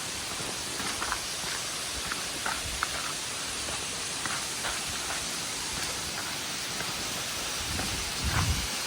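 Steady rush of heavy rain and a waterfall swollen by the rain, with scattered drip ticks and a few low thumps near the end.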